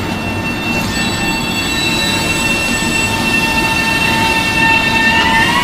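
Bombardier M7A electric multiple-unit train pulling away, its electric drive giving a steady high whine over the rumble of the wheels. About five seconds in, the whine starts to rise in pitch as the train gathers speed.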